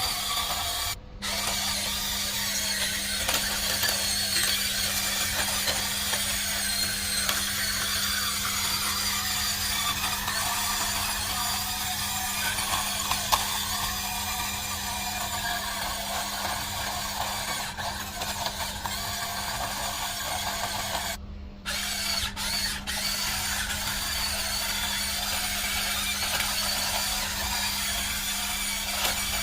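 Huina 1594 RC excavator's small electric motors and gearboxes whirring steadily as it works, with a constant hum underneath. The whir cuts out briefly twice, about a second in and again about 21 seconds in.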